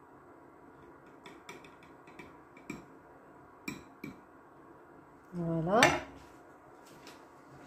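Metal serving ladle clinking against a glass baking dish and a serving plate: several light clinks, then a short rising squeal and a sharper clink as the ladle is laid in the dish near the end.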